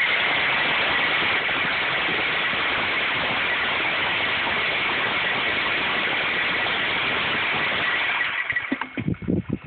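Automatic pond fish feeder starting on its timer and running its spinner motor with a steady whir and a thin high whine as it throws feed onto the water, then cutting off about nine seconds in. Irregular splashing follows near the end as the fish feed at the surface.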